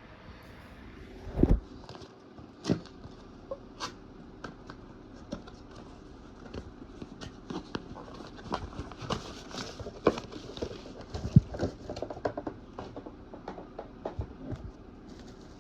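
Hands unpacking a boxed alarm clock radio: irregular knocks, taps and rustling of the cardboard box and packaging. Two sharper thumps come in the first few seconds, and the handling gets busier in the second half.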